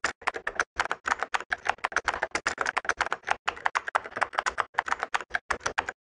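Computer keyboard typing sound effect: a rapid, even run of keystroke clicks, about eight a second, that stops just before the end.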